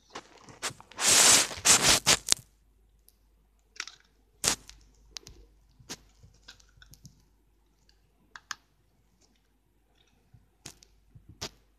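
Handling noise from toy sonic screwdrivers: a loud rubbing, scraping noise about a second in, then a series of separate sharp clicks as the toys are moved and adjusted.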